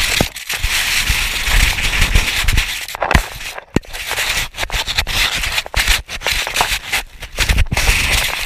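Snow crunching and scraping directly against a GoPro camera pressed into deep snow, with fur rubbing over it: a dense, loud crackling rustle full of sharp clicks that breaks off briefly a few times.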